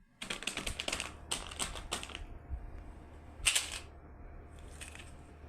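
Plastic candy wrapper crinkling and crackling as it is handled and opened by hand: two long runs of fine crackles, then a short sharp burst midway, then fainter scattered rustles.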